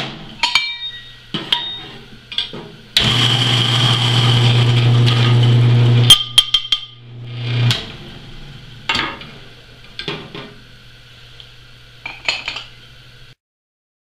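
Commercial coffee grinder running for about three seconds, grinding coffee beans, with a steady low motor hum that carries on for a moment after the grinding noise stops. Sharp metal clinks and knocks from a stainless steel cup being handled before and after.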